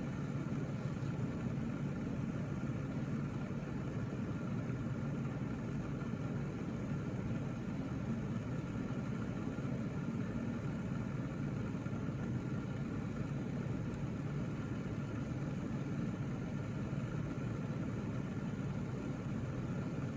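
Steady low mechanical hum with several constant tones, unchanging throughout.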